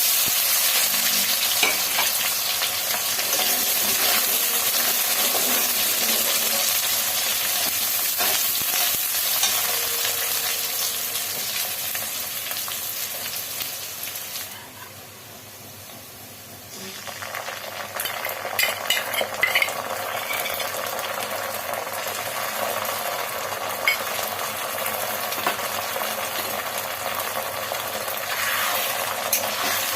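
Food sizzling as it fries in hot oil in a pan, with a spoon stirring through it. About halfway through, the sizzle drops away for a couple of seconds, then comes back with a run of clicks from the spoon against the pan.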